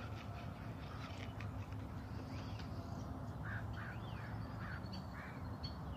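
Faint outdoor ambience: a low steady rumble with birds calling and chirping, including a run of four short calls about half a second apart in the middle.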